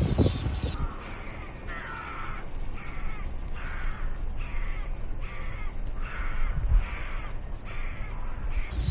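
A bird repeating short, harsh, caw-like calls, about a dozen of them, each lasting about half a second, over a low steady rumble.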